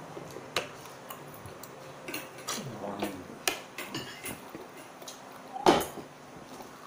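Scattered small clicks and knocks of eating at a table: pieces of fried chicken being picked apart by hand and eaten, with light taps against the dishes. One louder knock comes about five and a half seconds in.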